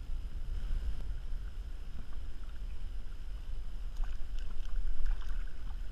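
Wind rumbling on the camera microphone, with light splashing from about four seconds in as a kahawai held on a lip-grip is dipped into the water beside the kayak.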